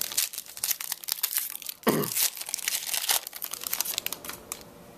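Trading card pack wrapper crinkling and tearing as a pack is opened, with cards being handled; a short falling-pitched sound about two seconds in.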